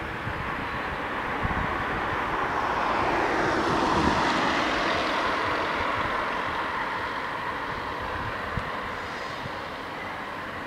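A vehicle passing by: a rushing noise that swells to a peak about four seconds in, falling in pitch as it goes by, then slowly fades.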